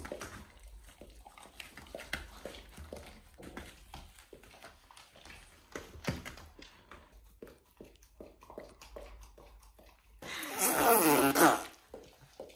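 Chocolate Labrador licking yogurt from a cup and the floor: irregular small wet clicks and laps. About ten seconds in comes a much louder burst of sound lasting about a second and a half.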